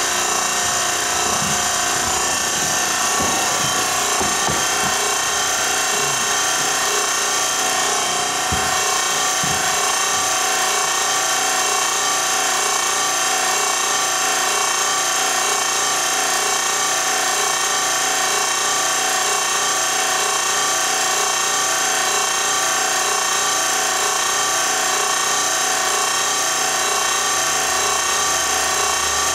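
A steady mechanical whir, like a motor running continuously, with several pitches held throughout. A few soft, low knocks come in the first ten seconds.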